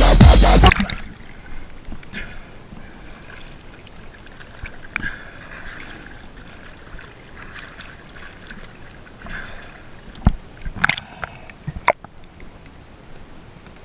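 Loud electronic music cuts off abruptly, leaving faint water ambience with a steady hiss. Near the end come a few sharp clicks and knocks.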